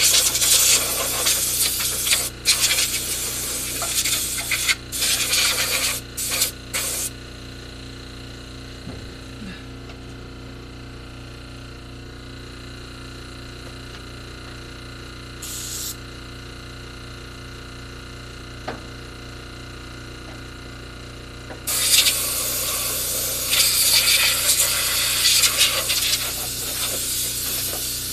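Air blower blasting air in long bursts with short breaks, stopping for about fifteen seconds except for one short puff, then starting again about 22 seconds in. A steady low hum runs under it.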